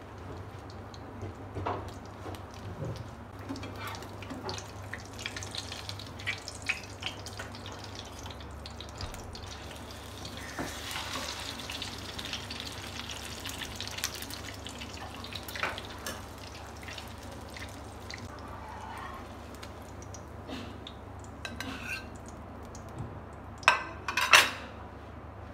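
A potato-cheese cutlet shallow-frying in oil in a non-stick pan, with scattered small sizzling crackles. A spatula scrapes and turns it in the pan around the middle. Two sharp knocks come near the end as it is lifted out.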